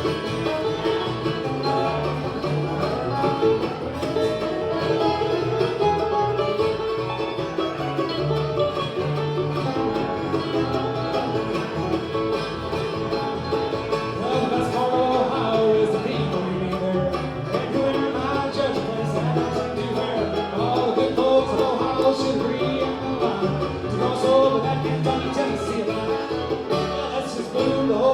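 Live bluegrass band playing.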